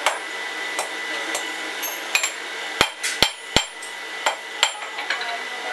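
Blacksmith's hand hammer striking a workpiece on an anvil, about two ringing metallic blows a second at an uneven pace. The three hardest blows come close together near the middle.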